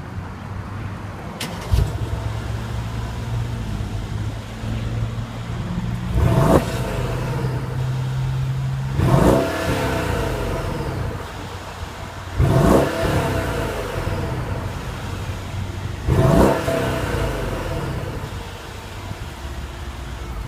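Mercedes-Benz SL550's turbocharged 4.7-litre V8 idling, with a sharp click a couple of seconds in. The engine is then revved four times, each rev rising quickly in pitch and dropping back to idle, about every three to four seconds.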